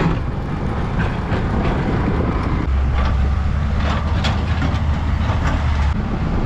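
Motorbike riding over a bumpy dirt track, its engine, tyre and wind noise mixed into a steady rumble with scattered knocks. A steady low drone joins about three seconds in and drops away near the end.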